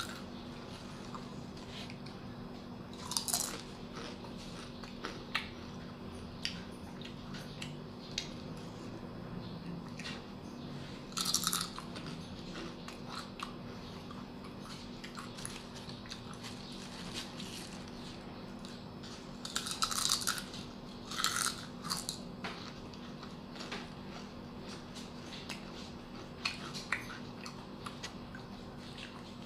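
Crisp fried banana chips (kluai chap) being bitten and chewed close to the microphone: a few loud crunchy bites several seconds apart, with quieter chewing crackles in between.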